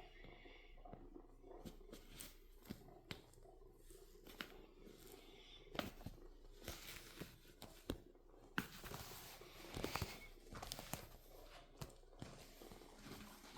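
A kitten's faint scratching and rustling with scattered small clicks, thickest about nine to eleven seconds in.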